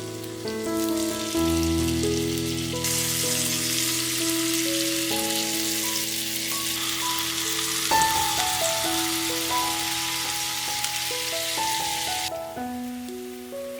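Background music of slow, held melodic notes, with a steady hiss of food sizzling as it cooks that starts about three seconds in and stops abruptly a second or so before the end.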